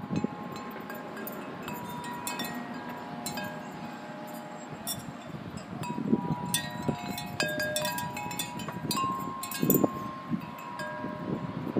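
Metal tube wind chime ringing as it sways: the clapper strikes the tubes at irregular moments and their clear notes ring on and overlap. Short bursts of wind noise hit the microphone about six and ten seconds in.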